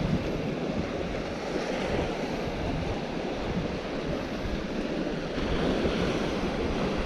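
Sea surf washing steadily against the rocky shore, with wind buffeting the microphone in low gusts.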